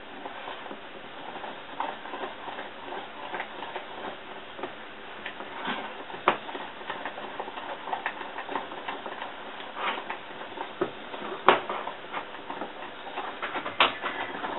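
Silicone spatula stirring a thickening milk mixture in a stainless steel saucepan: irregular light clicks and scrapes against the pan, with a few sharper knocks about six, eleven and fourteen seconds in.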